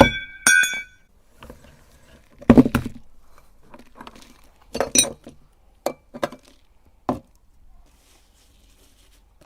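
Hard objects clinking and knocking: a ringing clink at the start, then several separate knocks and taps spread over the next seven seconds.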